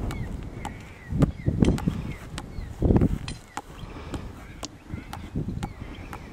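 Soccer ball headed over and over in keepy-uppy, each touch a short thud, roughly two a second. Gusts of wind rumble on the microphone, the loudest about three seconds in.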